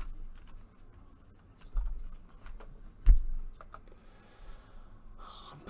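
Scattered computer keyboard keystrokes and mouse clicks, with a dull knock about three seconds in that is the loudest sound.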